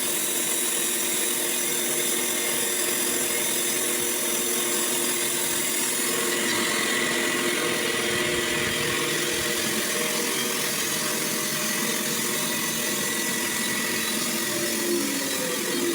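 Sawmill running steadily: a constant machine hum with a high hiss over it, its pitch dropping a little near the end.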